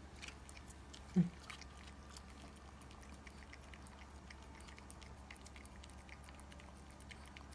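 Small Pomeranian-Chihuahua mix dog gnawing a chew stick held in a hand: a run of faint, irregular clicks and crunches. A brief low vocal sound comes about a second in.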